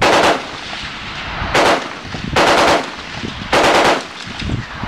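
Automatic gunfire: four short bursts of rapid shots, each well under a second long, roughly a second apart.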